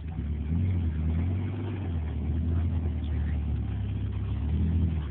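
Toyota Tacoma's engine running under load as the truck crawls up a steep rock ledge, a steady low hum.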